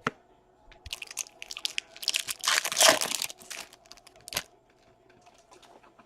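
Foil trading-card pack wrapper being torn open and crinkled, a flurry of rustling that is loudest about halfway through and dies away after about four seconds.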